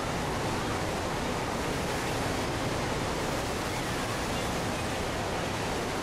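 Steady roar of water thundering down the Horseshoe Falls at Niagara and churning in the river at their base.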